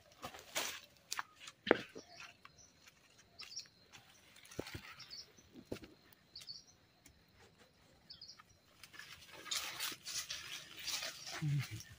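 Barefoot footsteps and rustling through dry leaf litter and undergrowth, with scattered crackles and snaps. A few short bird chirps come through in the middle, the rustling thickens in the last few seconds, and there is a brief low grunt near the end.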